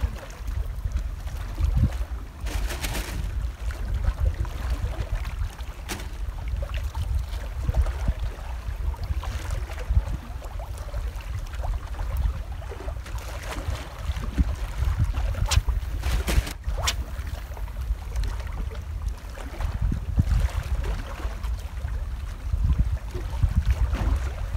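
Wind buffeting the microphone in a steady low rumble, over the faint wash of sea water. A few short sharp clicks stand out, about 3 and 6 seconds in and twice more past the middle.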